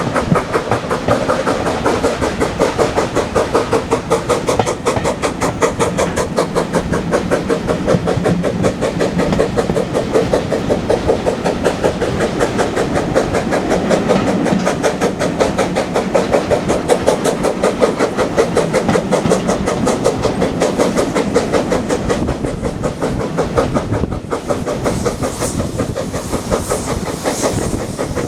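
Steam train running, with a fast, steady rhythmic clatter that carries on without a break. A hiss comes in near the end.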